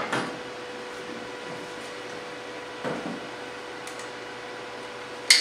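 Handling of stick-welding gear over a steady hum with a faint constant tone: a soft knock as the start, another about three seconds in, and a sharp click near the end as a welding rod is fitted into the electrode holder.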